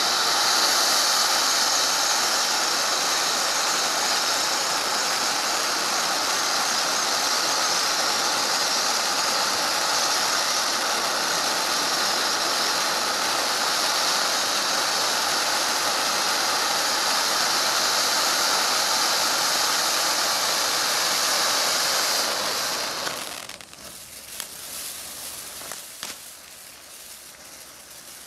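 A 500-gram firework fountain spraying silver sparks makes a loud, steady, high hiss. About 23 seconds in it dies down to a quieter crackling with scattered pops.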